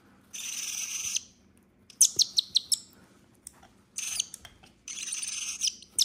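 Nestling bird giving raspy, hissing begging calls while it is spoon-fed formula, in three stretches of about a second. Between them come quick runs of clicking chirps, about two seconds in and at the very end.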